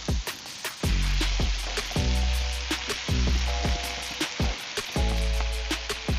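Vegetables sizzling in hot oil in a wok as they stir-fry, under background music with a steady beat.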